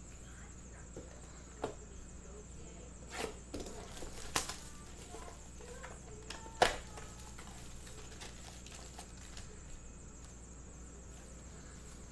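About five short knocks and taps, the loudest a little past the middle, from cardboard blaster boxes of trading cards being handled on a table, over a steady background hum.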